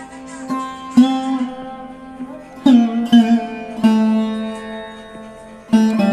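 Instrumental background music: plucked string notes ringing and dying away over a held low tone, with a new note struck every second or two.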